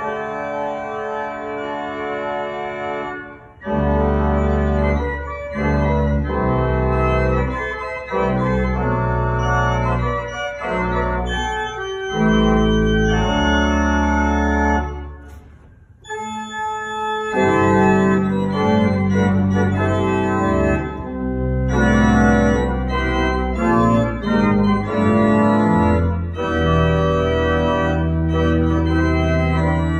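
Church pipe organ playing sustained chords over deep bass notes, with a short break about halfway through before the music picks up again.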